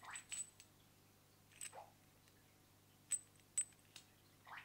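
Metal PL connector on a short coax jumper cable being handled in the fingers: a few light metallic clicks and clinks with a brief ring, the clearest two about three seconds in, with soft handling rustles between.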